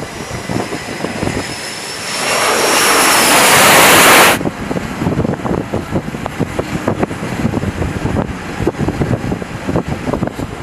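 F/A-18 jet engine noise, a roar with a high whine, growing louder over about four seconds as the jet comes in, then cut off abruptly. After it comes an uneven rumble with irregular crackles.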